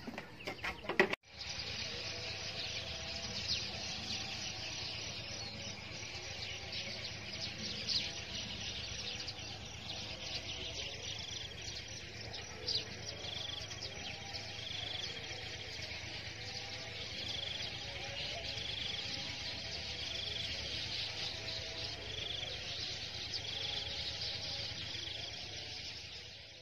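Field ambience: an insect chorus chirring steadily and high-pitched, starting about a second in, with a short bird call repeating about once a second through the middle.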